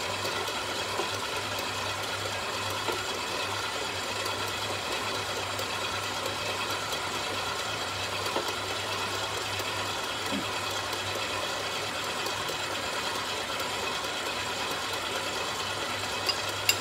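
Electric stand mixer's motor running steadily with an even hum, with a few light clinks of a spoon against the bowl.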